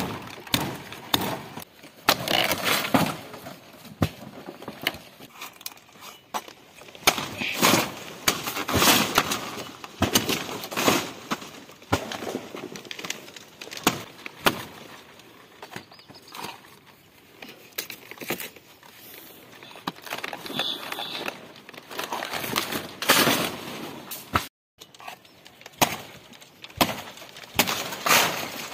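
Billhook knife chopping again and again into the fibrous stalk of a palmyra palm fruit bunch, making sharp cracking strokes at an irregular pace with crunching between them.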